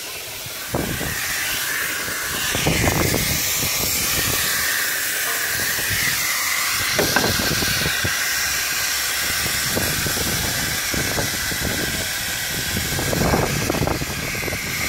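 A pneumatic impact wrench fires several short bursts of hammering on the fittings of a semi truck's rear air spring. A steady hiss of escaping compressed air runs underneath.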